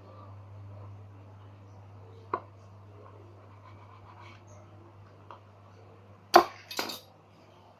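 A sharp tool being jabbed into a hard craft material to punch a hole: a single sharp click a couple of seconds in, then two loud knocks in quick succession near the end.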